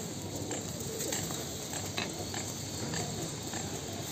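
Domestic pigeons cooing in a low murmur, with a few faint short ticks scattered through.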